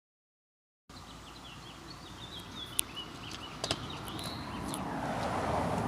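Outdoor ambience after about a second of silence: small birds chirping in short high calls, two sharp clicks in the middle, and a swelling rush of noise near the end.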